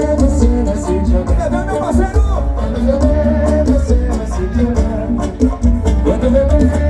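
Loud music with singing, a heavy, steady bass line and a regular percussive beat, played over a large carnival sound system.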